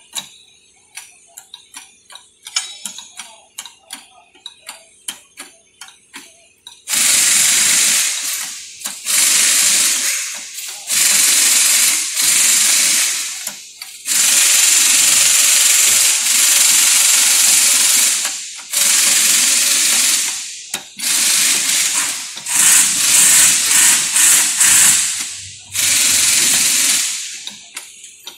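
Shop press worked in spurts on a car's rear wheel hub during a wheel bearing replacement. First comes a run of sharp light clicks. From about seven seconds in there are about ten loud bursts of hissing pump noise, each one to four seconds long, that start and stop abruptly as the press is run and released.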